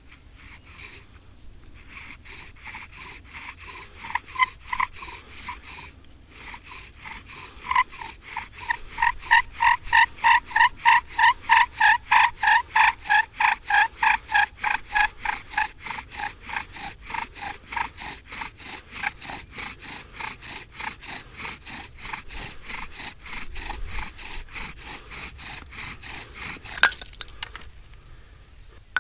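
Bow drill for friction fire, a branch bow strung with a shoelace turning a wooden spindle in a fireboard. It squeaks and rasps with every back-and-forth stroke, two to three strokes a second. The squeak is loudest in the middle and weakens later, and the strokes stop near the end after a sharp click.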